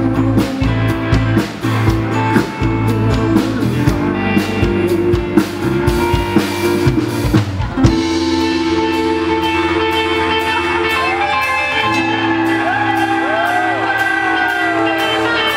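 A live band plays with drum kit and guitars; about halfway through the drums drop out, leaving held guitar chords under a wavering, gliding high melody line.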